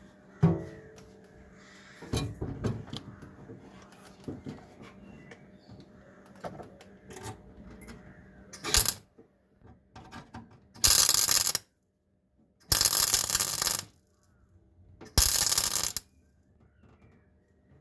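Metalwork on a car body: a sharp knock, a clatter of metal knocks and scattered clicks, then three loud bursts of noise of about a second each from a workshop tool.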